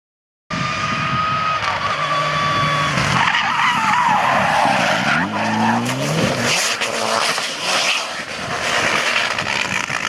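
Rally car running hard with tyres skidding on the surface. About five seconds in, the engine note falls steeply as the revs drop, followed by rougher noisy clattering.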